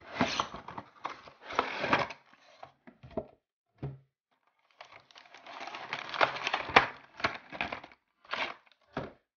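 Cardboard toy box and clear plastic blister packaging being opened and handled. The sound comes in irregular bursts of crinkling and crackling with sharp clicks as the plastic tray is pulled out of the box.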